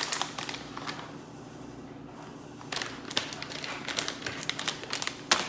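Plastic resealable snack pouch of glazed walnuts crinkling as it is handled and pressed shut, with a run of sharp clicks and ticks from about three seconds in and a loud click near the end.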